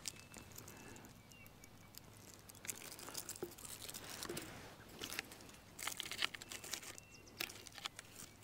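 Faint handling of split pine slab wood being stacked in a fire ring: scattered light knocks and scraping of bark, with some crinkling.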